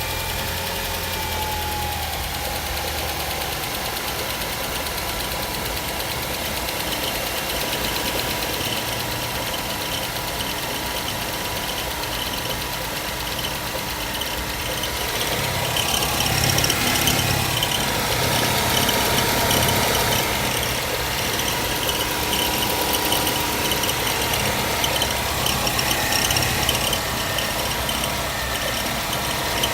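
Ford Mondeo Mk4's 2.3-litre four-cylinder petrol engine idling steadily, with an extraneous noise the owner is trying to track down. About halfway through it gets louder and a rapid rhythmic ticking comes through more clearly.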